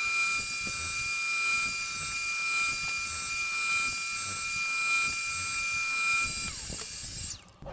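Table saw running with a steady high whine and hiss while the sled is pushed through it to cut a shallow groove for T-track. About six and a half seconds in the saw is switched off and the whine falls away as the blade spins down.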